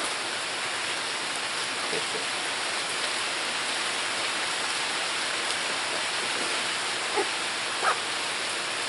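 Rain falling steadily, an even hiss, with two brief faint sounds near the end.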